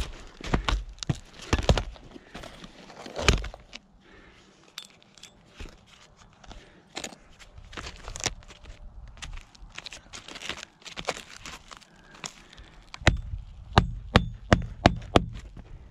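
Scattered knocks and rustling as asphalt shingles are handled, then near the end a quick run of about eight blows from a roofing hatchet driving nails through the shingles.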